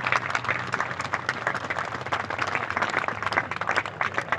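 Audience applauding: a dense, continuous patter of many hands clapping.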